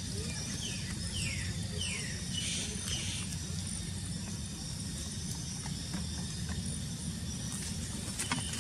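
Outdoor ambience: a steady low rumble under a steady high hiss. Three short falling chirps come between one and two seconds in, followed by a brief rustling flurry.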